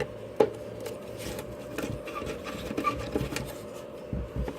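Scattered small clicks and knocks of hands and tools working on a plastic blower housing as it is taken apart, over a steady background hum.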